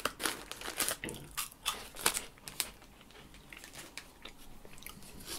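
Small plastic wrapper crinkling and tearing as it is picked open by hand, in irregular crackles that thin out after about three seconds.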